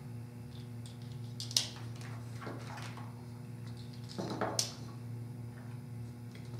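Plastic handling sounds as automotive relays and their white keeper clips are pressed back into a plastic relay socket block. There are two sharp clicks, about a second and a half in and again past four and a half seconds, with brief scraping before each, over a steady low hum.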